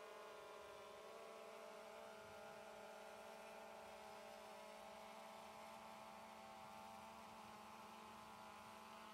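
Near silence, with only a faint steady hum of several pitched tones from a hovering DJI Phantom 2 Vision quadcopter's propellers, wavering slightly in pitch in the first second.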